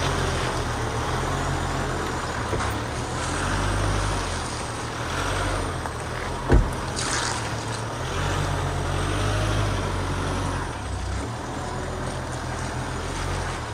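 Four-wheel-drive vehicle's engine running at low revs as it crawls along a rough dirt track. A single sharp knock comes about six and a half seconds in, followed by a short hiss.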